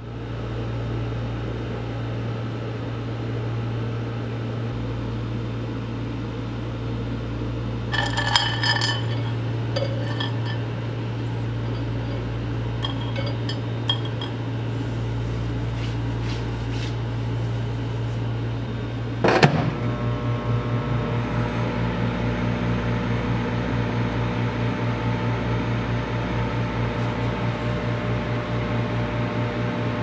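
Capsules and tablets clinking onto a microwave oven's glass turntable over a steady low hum, then a sharp clunk about two-thirds of the way through. After it the microwave oven runs with a slightly pulsing hum.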